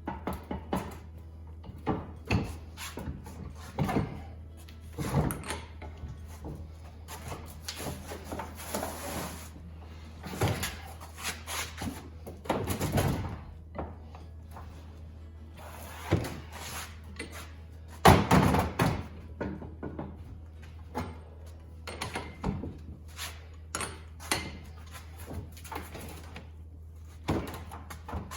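Irregular metal clunks and clicks from wrenching down the pinion nut on a Ford 8.8 differential to crush the crush sleeve, with the loudest knock about 18 seconds in. Background music plays underneath.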